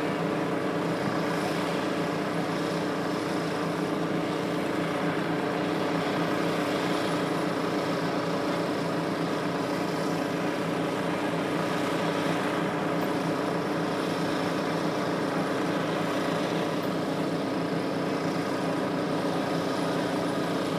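A small engine running steadily at a constant speed, with no change in pitch or level.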